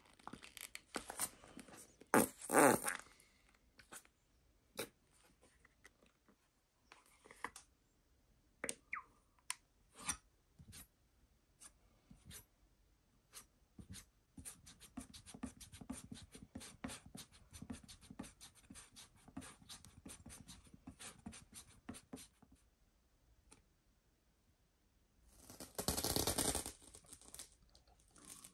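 Masking tape being pulled and torn off the roll in loud ripping rasps, near the start and again near the end, while it is laid and pressed onto a canvas. Between these, a steel palette knife taps and then scrapes rapidly, mixing acrylic paint on a palette.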